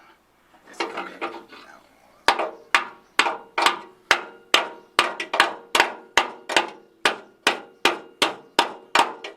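Hammer striking a metal part in steady repeated blows, about two a second, each blow ringing briefly. The blows start a couple of seconds in after a short pause.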